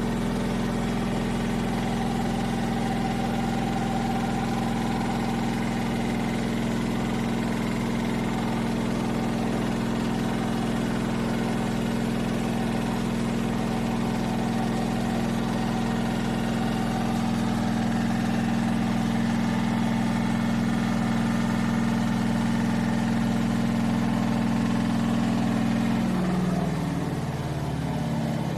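Telefunken 8 kg washing machine with an inverter motor running, a steady low mechanical hum. Near the end the tone wavers and drops and the sound gets a little quieter.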